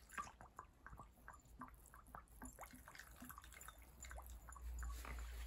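Petrol dripping and trickling from a bottle's nozzle into a small plastic funnel set in the neck of an aluminium bottle: a faint, quick, irregular run of small drips and splashes. A low rumble builds near the end.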